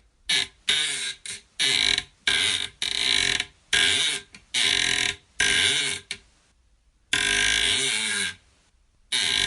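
A series of about a dozen creaks, each a short strained squeal whose pitch bends as it goes. Most last under a second, and one longer creak of about a second comes around seven seconds in.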